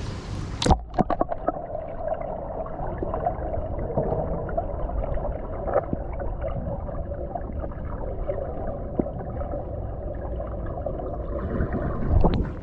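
Splash as the camera goes under the pool surface about a second in, then muffled underwater sound: a steady low hum with small clicks and bubbling. Near the end a second splash as it breaks back out of the water.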